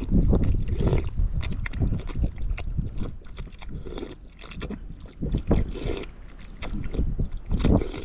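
Strong gusty wind buffeting the microphone: a deep, uneven rumble that swells and drops, with scattered short rustles and knocks over it.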